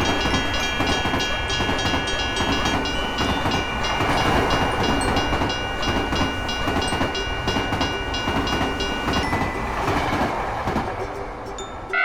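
A train running: a dense rumble carrying a steady high ringing tone and a fast regular ticking, both of which stop about nine seconds in, after which the rumble eases off.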